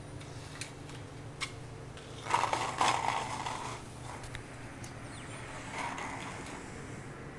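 Clear plastic cup dome lid clicking, clattering and scraping on a tile floor as a ferret pushes at it, with a loud burst of clatter about two seconds in that lasts about a second and a half, and a smaller one near the end.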